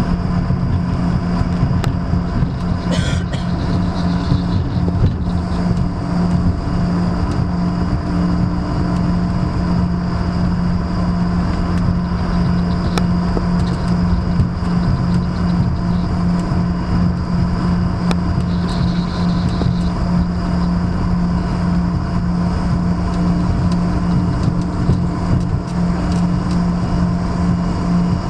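Steady cabin noise of a jet airliner taxiing, with a constant low hum under an even rush of engine and air noise.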